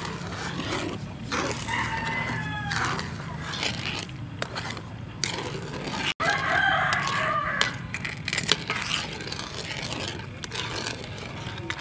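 A rooster crows twice, once about two seconds in and again, louder, just past the middle. Underneath, a wooden spoon knocks and scrapes as it stirs liquid in a metal frying pan.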